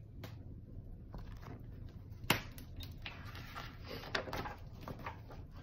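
Paper and thick book pages being handled and rustled as a pull-out paper piece is taken from a picture book, with a sharp tap about two seconds in and a run of rustling near the end.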